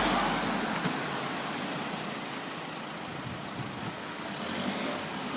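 Road traffic: a motor vehicle's noise fading away over the first two seconds, then a steady traffic hum.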